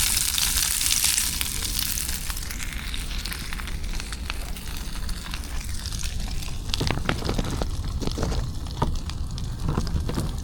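Wagyu steak sizzling and crackling as it cooks, the sizzle loudest at first and then settling lower.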